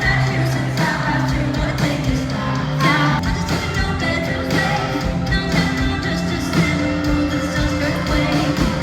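Pop-rock music with a singing voice, running steadily throughout.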